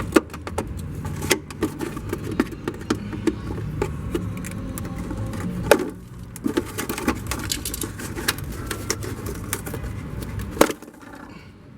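Irregular clicks and knocks of hand tools and metal or plastic parts being worked on a car body, over a steady low rumble. A sharp knock comes about ten and a half seconds in, after which the rumble drops away.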